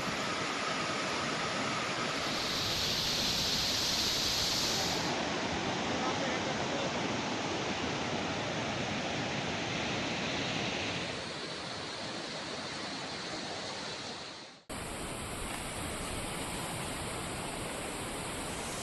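Floodwater of a swollen, muddy mountain river rushing in a steady, dense torrent. About three-quarters of the way through it breaks off at a cut and resumes as water pouring down over rocks.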